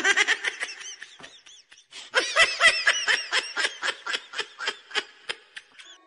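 High-pitched laughter in two long bouts of rapid giggles, about five to a second, with a short pause after about a second and a half.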